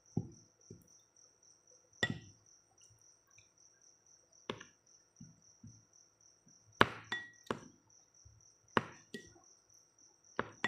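Plastic spoon knocking and scraping against a ceramic bowl of mashed papaya and milk. There are sharp clinks every second or so, some ringing briefly.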